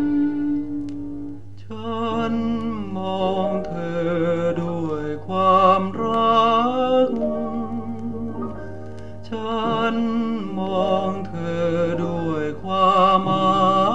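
Music from a mono vinyl LP playing on a turntable: an old Thai ballad. A long held note gives way about two seconds in to a wavering melody line over a steady accompaniment.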